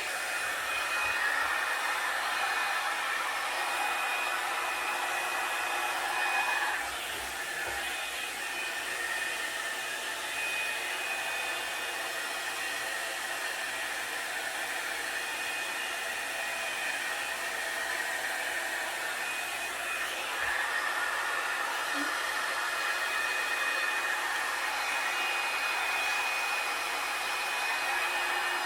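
Revlon One-Step hot-air dryer brush running steadily, its fan blowing with a constant hiss and a faint high whine. The sound drops a little about seven seconds in and comes back up about twenty seconds in.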